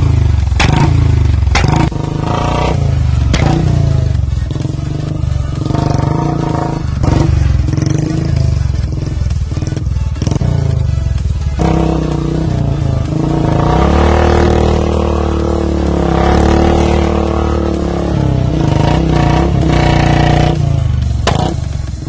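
Royal Enfield Classic 350 single-cylinder engine revved hard while the rear wheel spins in the dirt. Sharp exhaust cracks come in the first couple of seconds, and the revs rise and fall repeatedly in the second half.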